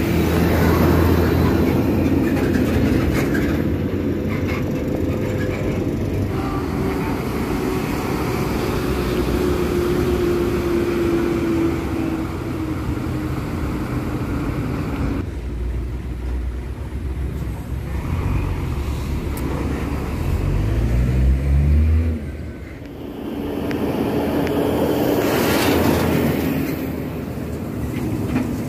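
Heavy diesel truck engines running, with a slowly falling tone about a quarter of the way in and an engine revving up about three quarters through before its level drops suddenly.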